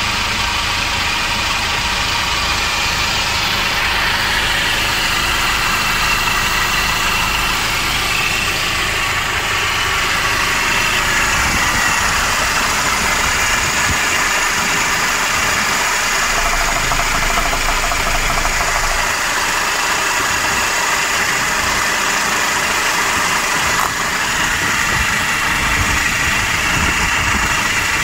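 Hyundai Porter II light truck's engine idling steadily, heard up close through the open engine compartment beneath the cab seat.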